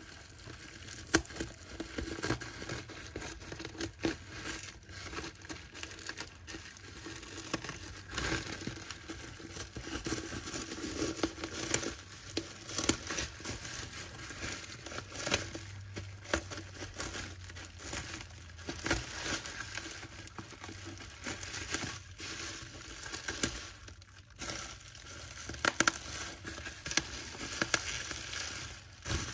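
Plastic bubble wrap crinkling and rustling as it is handled and pulled off a package, with irregular crackles and a few louder sharp crinkles.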